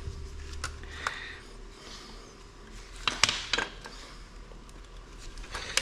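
A few light clicks and knocks from handling the parts of a dismantled electronic logging device, the sharpest about three seconds in and near the end.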